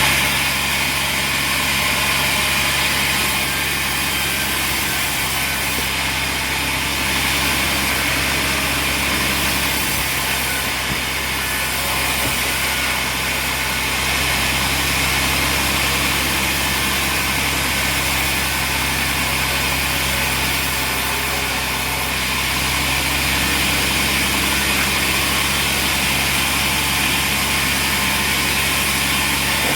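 Sawmill machinery running steadily, a constant low engine-like hum with an even hiss over it.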